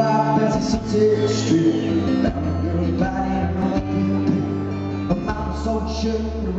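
Live band playing: strummed acoustic guitar, electric bass and drum kit, with a man singing.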